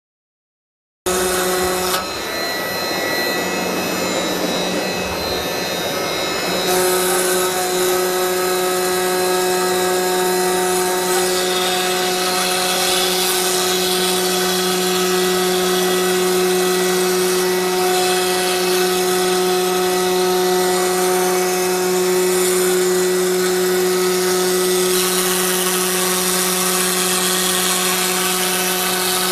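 CNC router at work: the spindle running with a steady whine while a two-flute end mill cuts printed sign sheet, over a constant rushing noise. It starts about a second in and holds steady, the whine growing firmer after about seven seconds.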